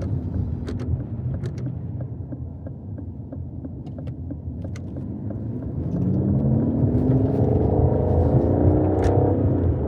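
Aston Martin DBS V12 engine cruising lightly with a scattering of sharp pops, then under hard acceleration from about six seconds in, its note rising steadily until a gear change near the end drops the pitch and it pulls on.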